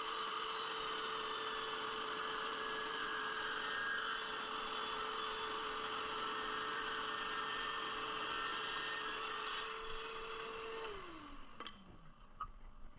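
Scroll saw running at a steady speed, then switched off about eleven seconds in, its pitch falling as it winds down. A few light clicks follow.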